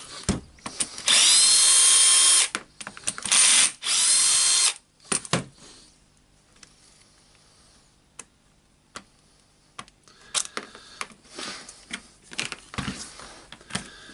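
Cordless drill-driver running in three short bursts, backing the screws out of a drywall screw gun's nose housing. After that come scattered light clicks and clatter of small parts being handled.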